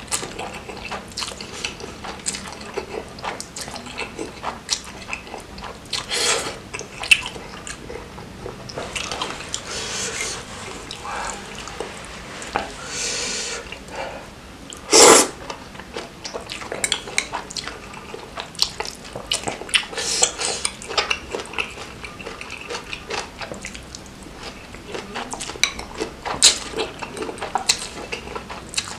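Close-miked eating: a person slurping and chewing noodles and meatballs in spicy broth, with wet mouth smacks and a metal fork clicking against ceramic bowls. Many short clicks and smacks throughout, with a single loudest burst about halfway.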